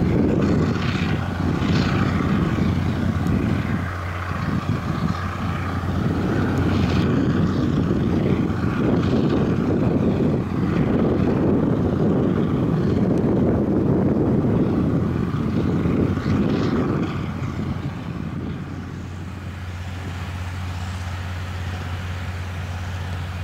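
Drilling rig's diesel power engines running, a steady low hum under a heavier rumble that eases off about 17 seconds in.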